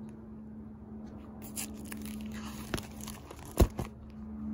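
Clear plastic photo-album sleeves crinkling as they are handled, with a couple of sharp clicks, the loudest about three and a half seconds in, over a steady low hum.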